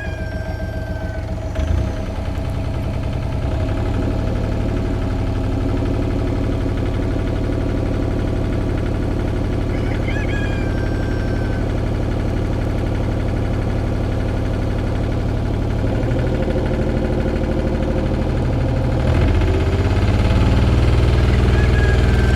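Komatsu PC28UU mini excavator's three-cylinder diesel engine running steadily, throttled up in steps about 2 s in and again near the end to full throttle. It has a fault that the owner suspects is a bad injector or a stuck valve.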